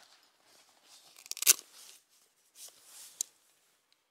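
Nylon outdoor gear being handled: irregular rustling, with a loud rasp about a second and a half in and a sharp click shortly after three seconds.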